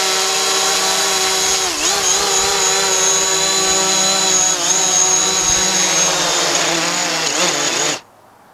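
Quadcopter drone's motors and propellers hovering with a steady, high whine. The pitch dips briefly twice, then the sound cuts off suddenly about eight seconds in.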